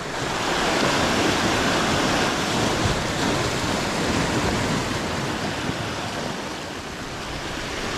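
Sea surf breaking and washing over rocks close by: a steady rush of water that swells about a second in, eases slowly, then builds again near the end.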